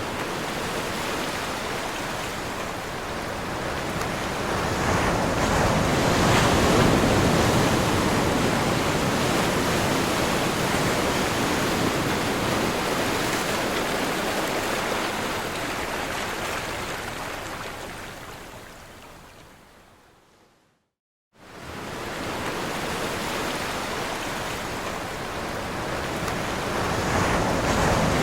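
Ocean waves crashing and washing in: a dense rush of surf that swells to a peak, then slowly fades away, drops out to silence for under a second about two-thirds through, and swells back in.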